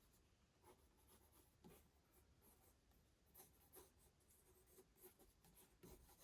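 Faint pencil strokes on paper, short and irregular, as a figure is sketched.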